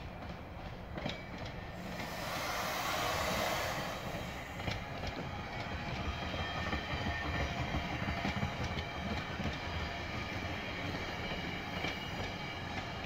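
Exo commuter train of double-deck coaches passing close by: a steady rumble with wheels clicking over the rail joints. A loud rushing hiss swells and fades about two to four seconds in.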